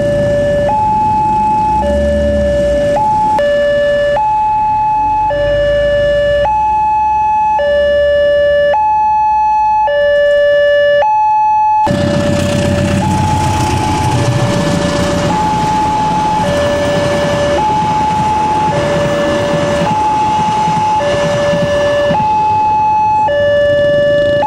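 Railway level-crossing warning alarm sounding its electronic two-tone signal: a lower and a higher tone alternate about once a second. Motorcycle engines and road noise run beneath it, heavier in the second half.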